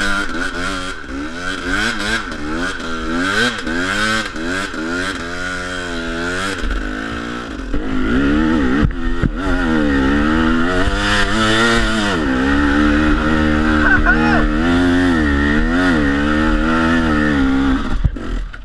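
Dirt bike engine revving up and down again and again as the throttle is worked on a steep, slippery hill climb, then pulling harder and steadier at higher revs about eight seconds in, before the revs drop away near the end.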